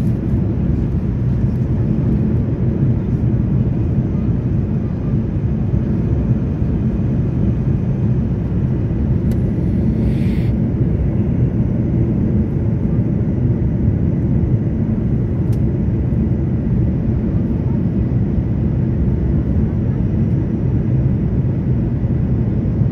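Steady cabin noise of an Airbus A330 airliner on its landing approach, heard at a window seat beside its Rolls-Royce engine: a loud, even rumble of engine and airflow, with a short hiss about ten seconds in.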